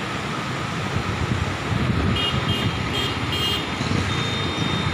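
Floodwater rushing steadily through the open gates of a dam spillway. About two seconds in, four quick electronic beeps sound, followed near the end by a thin, high, steady tone.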